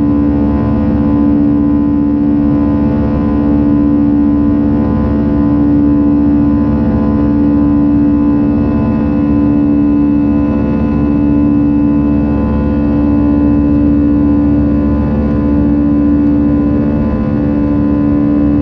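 Airbus A320 jet engines heard from inside the cabin in flight: a loud, steady drone with a strong hum and a few fainter steady tones above it.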